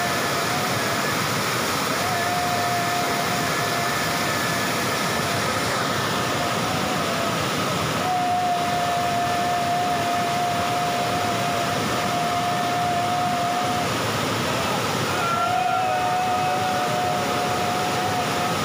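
Waterfall rushing steadily over rock ledges, with a few long, level tones held over the water noise.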